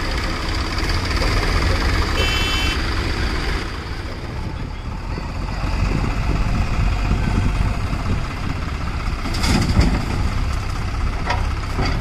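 Diesel engines of a Swaraj 744 FE tractor and a JCB 3DX backhoe loader running steadily while the loader works. A short high beep about two seconds in, and a brief clatter near the end as the bucket's load drops into the trolley.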